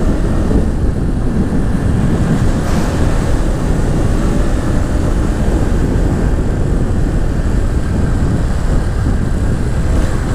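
Motorcycle running at a steady riding speed, with heavy wind rush on the microphone.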